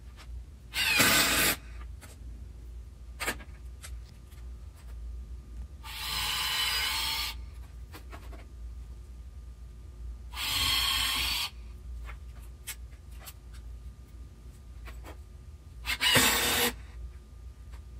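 Cordless drill running in four short bursts of about a second each, drilling and driving screws into a wooden 2x6 bench top.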